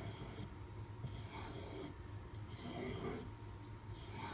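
Steel knife blade being stropped on a leather strop loaded with white compound: a series of brushing strokes, about one a second, each a short rasping hiss with a gap between.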